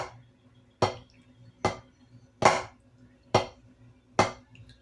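Drumstick strokes played slowly and evenly, six sharp hits a little under a second apart, part of a slow Swiss Army triplet rudiment demonstration.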